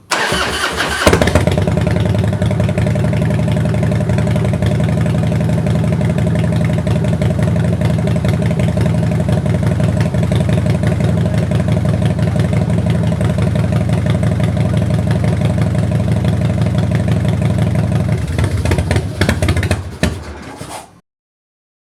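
Motorcycle engine being started: a brief crank, catching about a second in, then idling steadily. Near the end it turns uneven and stops abruptly.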